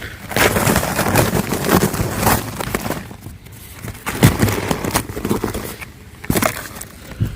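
Thick ice crusted over cardboard on a car window crackling and cracking as the frozen cardboard is pried up, in two spells of crunching with a few sharp knocks.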